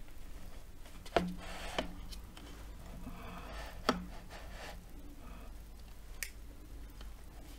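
A few sharp knocks and clicks, about four, as a plate of sandwiches and ridged potato chips is handled and shifted on the table, with a faint rustle between the knocks.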